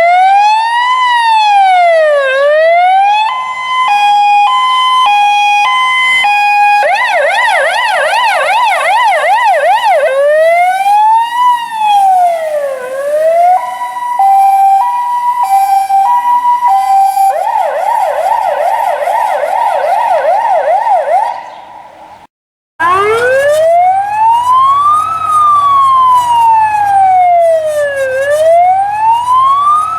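Fire engine's electronic siren run through its tones: a slow rising-and-falling wail, a two-note hi-lo, and a fast yelp, the sequence played twice. After a brief break about three quarters of the way in, a slower wail sounds over the low rumble of an engine.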